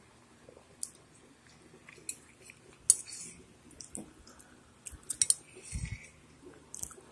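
Eating sounds: chewing with a few sharp clicks and taps of a metal spoon against a bowl, the loudest about three seconds in, and a dull thump near the end.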